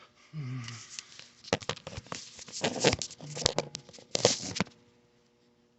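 Hands handling tools and small parts: irregular rustling, crackling and sharp clicks for about three seconds, then they stop. There is a short low murmur about half a second in. No drill is running.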